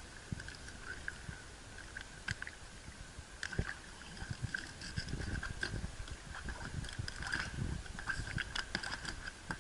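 Water lapping against a small boat's hull, with scattered light clicks and rustles from fishing net being handled and cut off a sea turtle with a knife. A faint steady high tone runs underneath.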